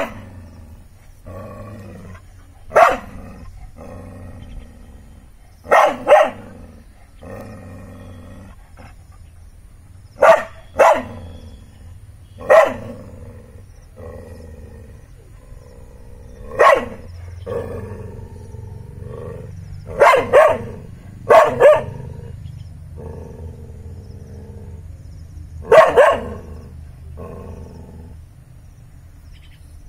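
A dog barking in loud, sharp barks at uneven intervals, some in quick pairs, with quieter growls between them: the dog is barking at a snake in front of it.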